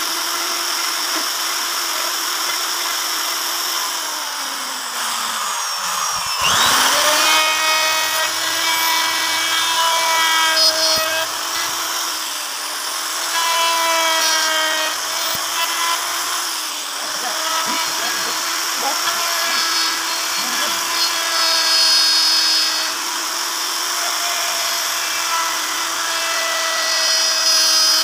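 Makita electric router running with a steady high whine as its bit cuts grooves into a wooden panel. About six seconds in, its pitch sags briefly and comes back up.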